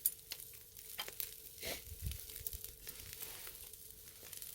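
Pork neck sizzling on a charcoal brazier grill, with scattered sharp crackles and clicks.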